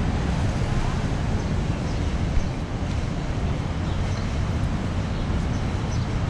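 Steady outdoor street ambience dominated by an even low rumble, with no distinct events.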